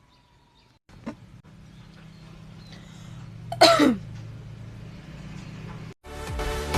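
One loud staged cough about three and a half seconds in, the voice sliding down in pitch, after a short sharp sound about a second in. Music starts abruptly near the end.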